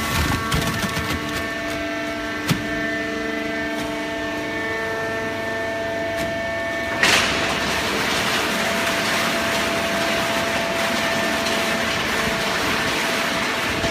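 Horizontal hydraulic cardboard baler running with a steady hum and a few knocks in the first seconds; about halfway through, a sudden loud hiss sets in and carries on steadily.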